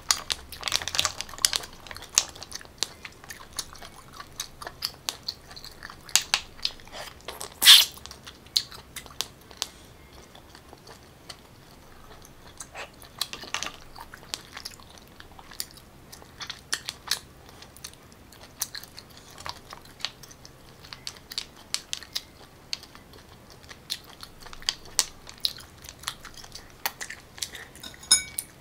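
Close-up mouth sounds of a person chewing and biting sea snail meat in garlic butter sauce. Many short, sharp clicks are scattered throughout, the loudest one about eight seconds in.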